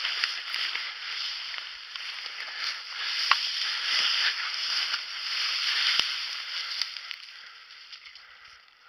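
Dry ferns, stems and leaf litter rustling and crackling close to the microphone as a person pushes through dense undergrowth, with a few sharp snaps; it dies down near the end.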